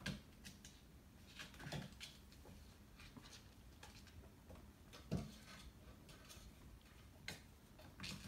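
Faint, irregular taps and clicks of a kitten playing with a toy on a hardwood floor, a few at a time, with the loudest knock about five seconds in.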